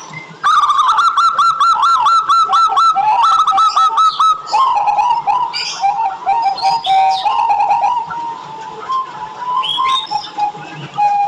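Local Indonesian zebra dove (perkutut) singing: a fast run of short, evenly repeated cooing notes for about four seconds, then a lower, rolling coo. A few brief higher chirps are mixed in.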